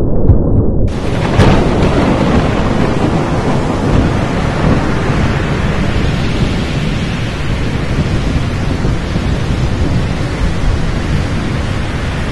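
Thunderstorm: muffled for about the first second, then a sharp crack of thunder, followed by steady heavy rain with low rumbling underneath.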